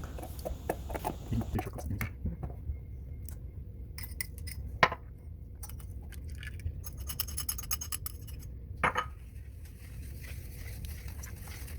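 A utensil scraping and clinking against a mixing bowl as pancake batter is mixed, with scattered small clicks, a quick run of clinks around the middle, and sharper single clinks about five and nine seconds in.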